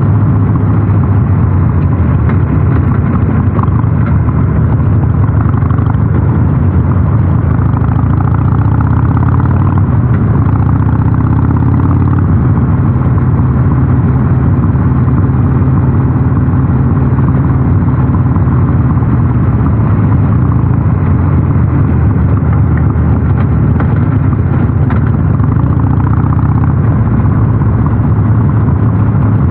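Harley-Davidson Sportster 883 Super Low's air-cooled V-twin running steadily under way, its exhaust note through North American-spec mufflers loud and even, with only slight changes in engine speed.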